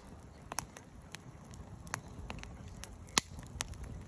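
Wood fire crackling in a fire pit: irregular sharp pops and snaps over a low steady rustle of the flames, the loudest pop about three seconds in.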